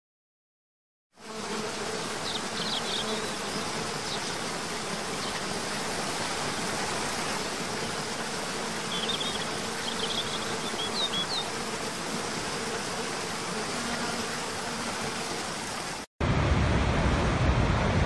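Steady rush of water from a waterfall cascade, with a low steady buzz and a few short bird chirps. After a cut near the end it changes to a louder, deeper rush of a large waterfall, with wind.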